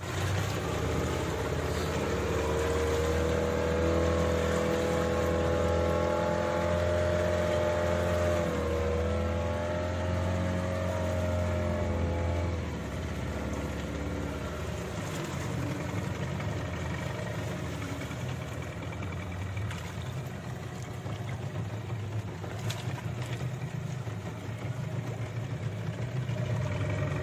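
Fishing boat's engine running steadily, with a whining tone over its hum for the first dozen seconds that stops about halfway through, leaving the engine a little quieter.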